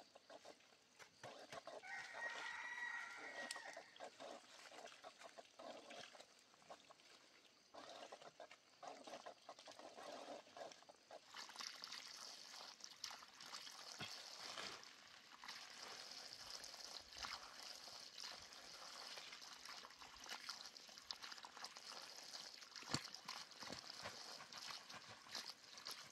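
A rooster crows once, about two seconds in. Faint scrapes and taps come from working the soil, and from about eleven seconds on a steady high hiss comes in.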